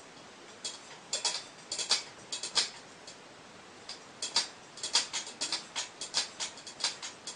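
A cat at its food: a run of sharp, irregular clicks, some in quick clusters of two or three, stopping and starting.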